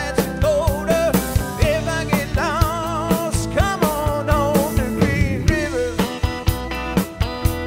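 Rock music with a singer and a steady drum beat.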